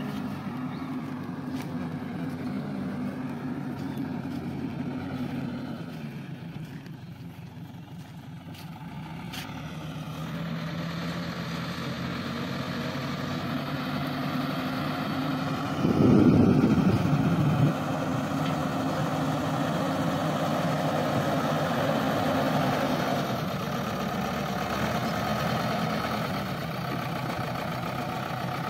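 JCB 3DX backhoe loader's diesel engine running as the machine drives and works its front loader bucket, dropping away for a few seconds, then growing louder as it works under load. A loud low rumble lasts about a second and a half around the middle.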